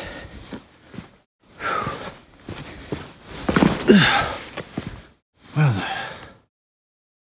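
A person breathing hard, with several loud sighing breaths, some of them voiced and falling in pitch, broken by short silent gaps.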